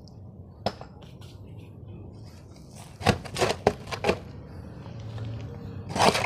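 Long-handled steel spade digging into stony soil: short sharp scrapes and clinks of the blade on earth and stones, one about a second in, a cluster of four around three to four seconds, and another near the end.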